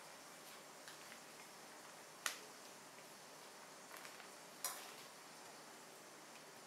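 Metal tongs clicking and tapping as thin frozen ice cream sheets are lifted and stacked on a ceramic plate: two sharp clicks about two and four and a half seconds in, with a few fainter ones, over faint hiss.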